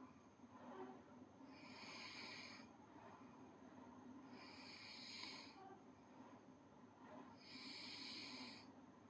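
A sleeping girl snoring faintly. Three slow, hissy breaths come at even spacing, about one every three seconds.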